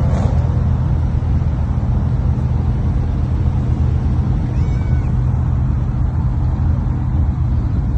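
Sports car engines running with a steady, deep drone. A brief high squeak comes about halfway through.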